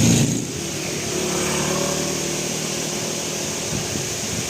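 Road traffic: a vehicle passing close, its loud engine rumble falling away within the first half second, then a steady wash of engine and road noise with a faint hum.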